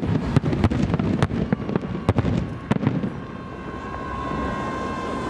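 Fireworks display: a rapid string of shell bursts banging, thinning out after about three seconds as the last bursts fade.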